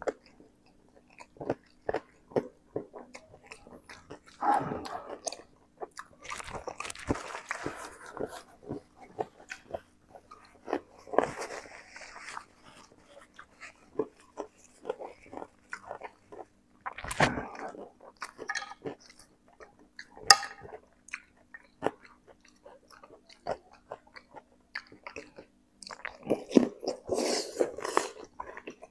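Close-miked chewing of spicy instant noodles, with many wet mouth clicks and smacks and several loud huffing breaths, the eater panting from the chili heat.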